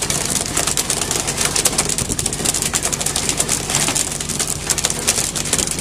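Boat engine running steadily, with a constant high hiss over it.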